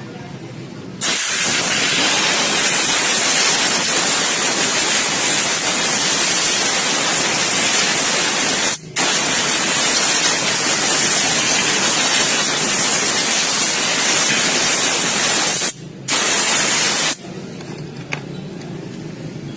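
Loud steady hiss of a spray or air jet, starting about a second in, broken twice by brief pauses and stopping a few seconds before the end.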